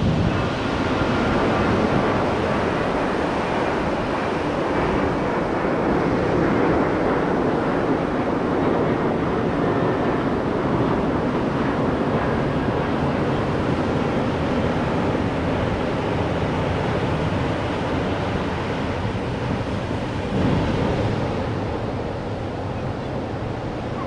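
Storm-swell surf breaking and washing up the sand at high tide, a steady rushing of water, with wind buffeting the microphone.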